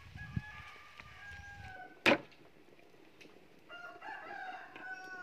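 A rooster crowing twice: one long crow that falls slightly in pitch, then a second near the end. A single sharp knock about two seconds in is louder than either crow.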